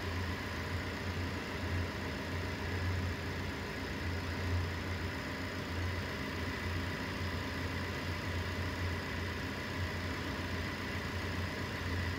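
Common rail diesel engine idling steadily, a low even rumble.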